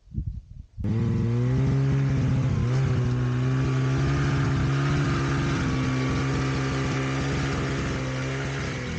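Snowmobile engine running steadily, starting abruptly about a second in with a slight change in pitch a couple of seconds later, as a Ski-Doo bogged in deep snow is driven while someone pulls it out with a tow rope.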